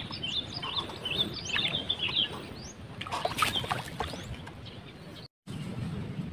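Small birds chirping rapidly over the paddy for the first two and a half seconds, then a cluster of sharp clicks and splashy knocks about three to four seconds in. After a short dropout there is a steady low rumble.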